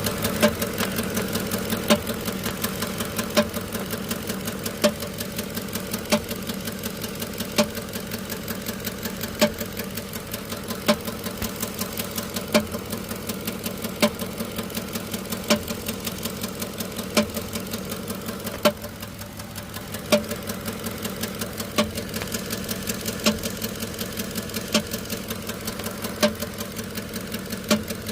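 Engine idling with a nasty clank that strikes about every one and a half seconds over the steady running. The engine has a misfire on cylinder #6 that new spark plugs and ignition coils have not cured; the cause of the clank is unknown to the owner.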